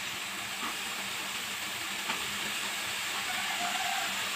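Cut yardlong beans and potato pieces sizzling steadily in a karahi of hot spiced masala, just added to the pan.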